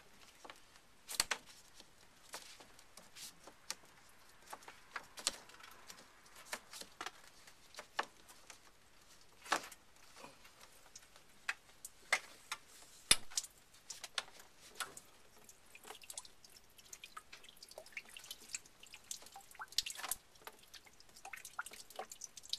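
Water dripping irregularly from the opened PEX hot water line, about one or two drops a second with some louder ones. The drips are cold water seeping back through the drained hot line past leaking tub faucet valves upstairs.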